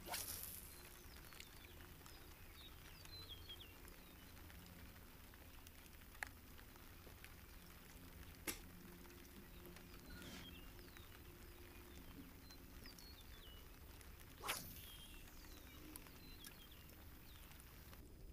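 Quiet outdoor ambience: faint bird chirps over a low steady hum, with a handful of sharp clicks, the loudest about eight and a half and fourteen and a half seconds in.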